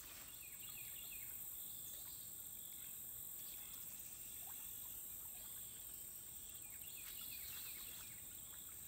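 Quiet woodland ambience: a steady high insect drone, with two short runs of quick descending bird chirps, one about a second in and another near the seven-second mark.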